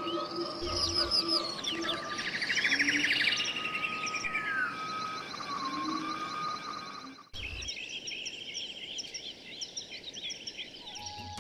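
Birdsong ambience: many birds chirping and whistling, with a rapid buzzy trill about two to three seconds in. About seven seconds in it cuts sharply to a second stretch of dense chirping.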